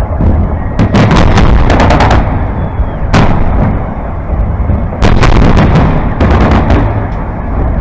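Aerial firework shells bursting overhead: loud sharp bangs, a rapid run of them about a second in, a single one near the middle and two more quick runs later, over a continuous low rumble.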